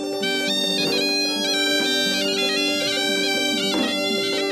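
Horanawa, the Sri Lankan double-reed shawm, playing a melody that steps up and down over steady held low notes, with a nasal, bagpipe-like tone.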